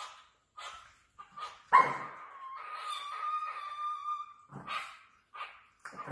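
A small dog whining and yelping: a few short, high yelps, then a louder, long, steady whine that lasts about two seconds, then more short yelps.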